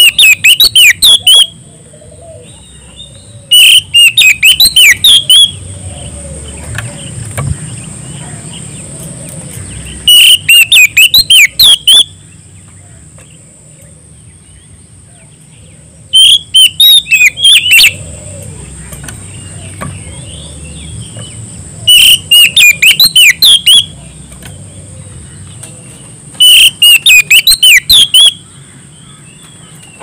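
Oriental magpie-robin (kacer) singing a loud challenge song at a rival. It gives six bursts of rapid, sharp whistled notes, each lasting about two seconds, with pauses of a few seconds between them.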